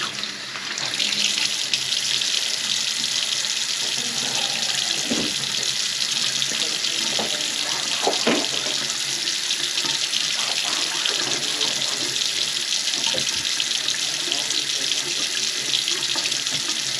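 Water running steadily from a kitchen faucet into a sink clogged with grease, with a few faint knocks.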